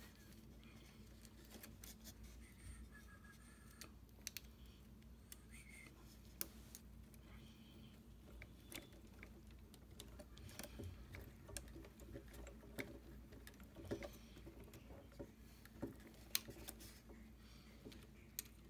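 Faint, scattered clicks and light taps of small screws and a hex socket tool being worked on a Tamiya RC truck's axle assembly, over a low steady hum.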